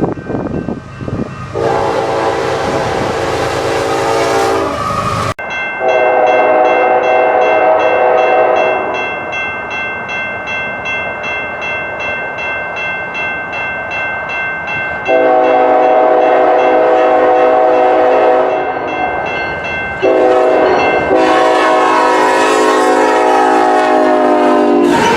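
Locomotive air horns sounding. One blast is cut off abruptly about five seconds in. Then come two long blasts, a short one and a long one, the grade crossing signal, over a steady rhythmic ringing.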